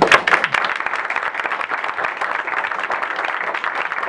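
Audience applauding: many people clapping, starting abruptly with a loud burst and then holding steady.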